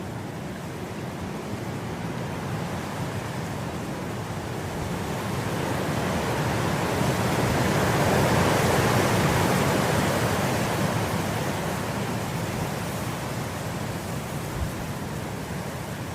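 Wind blowing through grass: a steady rushing that swells to a gust about halfway through, then eases off.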